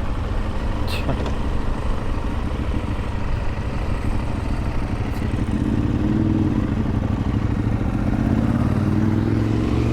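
Motorcycle engine running while riding at low town speed, with wind noise, as heard from a microphone inside the rider's helmet; the engine note grows stronger about halfway through as the bike pulls on.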